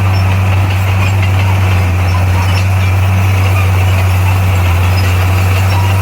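Bulldozer's diesel engine running at a steady, unchanging pitch, a loud low drone.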